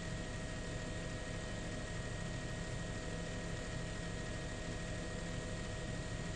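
Steady drone of a news helicopter's engine and rotors, heard from on board, with a few constant whining tones over it.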